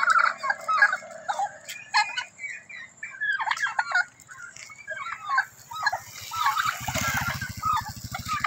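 Domestic turkeys calling: many short yelps and clucks one after another, with a gobble trailing off in the first second. A motorcycle engine runs past near the end, under the calls.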